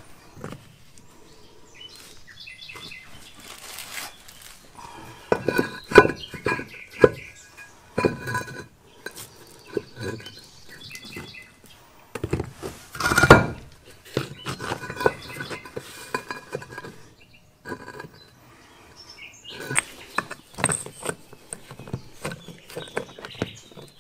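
Stone and tile fragments clinking and clattering as loose rubble is cleared by hand from the bedding under a lifted floor tile. The knocks come in irregular clusters, with the loudest clatter about halfway through.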